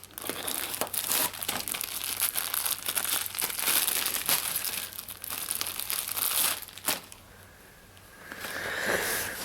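Gift wrapping being torn and crumpled as a present is unwrapped, a dense crackling and rustling that dies down about seven seconds in.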